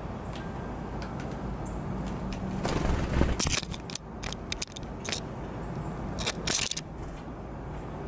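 Small birds at a seed-cake cylinder feeder: short scraping, crackling bursts and clicks, loudest about three seconds in, with a few more just past six seconds, over a steady low background rumble.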